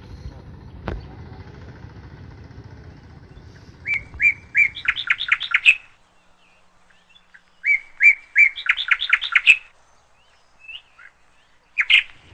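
A songbird singing: two phrases, each a few spaced notes running into a quick series of bright notes, with a shorter burst near the end.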